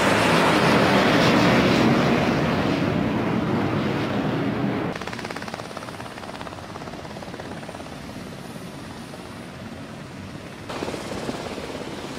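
Loud roar of two jet aircraft passing low overhead, fading slowly over the first five seconds. After a sudden cut, a quieter steady sound of a helicopter hovering low over the sea, stepping up in level near the end.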